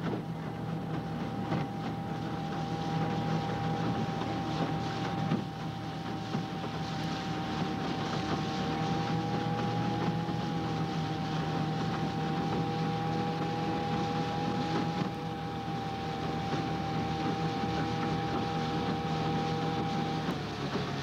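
Outboard motor of a coaching launch running at a steady speed, an even drone with a whine over the rush of wind and water; the pitch dips slightly right at the end as the throttle eases.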